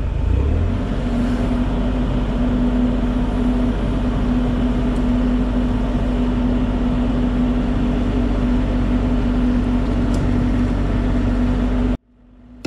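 Diesel engine of compact heavy equipment running steadily, its pitch settling in during the first second and then holding a steady drone; the sound cuts off abruptly near the end.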